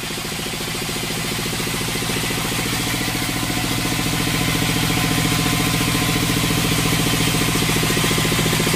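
Vertical band sawmill running steadily: a continuous machine hum with a fast flutter, the blade turning while a log is fed up to it.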